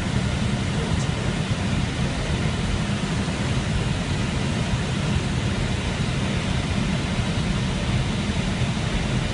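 Steady noise of rushing air and engines inside an airliner's flight deck on final approach, low and even throughout.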